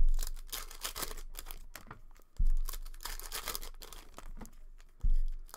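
Foil wrappers of trading-card packs being torn open and crinkled by hand, a steady crackle of small clicks. Three dull low thumps stand out: one at the start, one about 2.4 s in and one about 5 s in.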